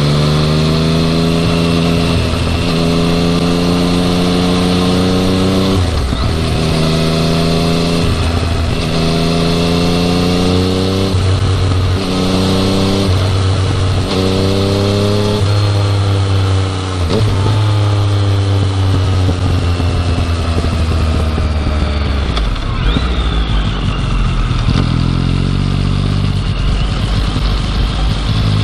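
Yamaha MT-09 three-cylinder engine being ridden hard, revs climbing and dropping back at each upshift every couple of seconds, then holding steadier and falling off before pulling up again near the end. The bike runs on its stock muffler and has a 'shaa' hissing abnormal noise that the owner is chasing.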